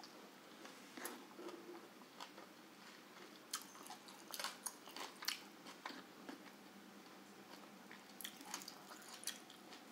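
Quiet close-up chewing and biting of a hand-eaten meal of grilled chicken and rice, with scattered sharp wet mouth clicks and smacks, bunched a few seconds in and again near the end.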